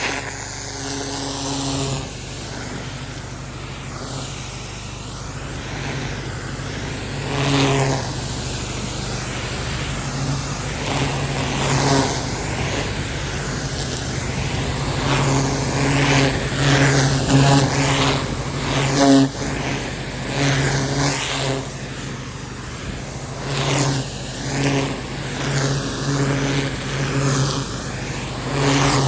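Pressure washer engine running steadily, its note swelling every few seconds under load, over the continuous hiss of the water jet.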